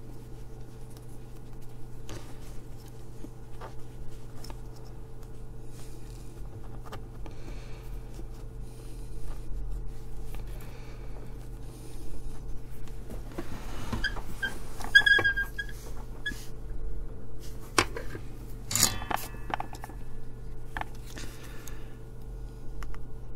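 Small metal hand tools lightly clicking and tapping on a workbench during hand-soldering of a surface-mount chip. A few short ringing clinks come past the middle, over a steady low hum.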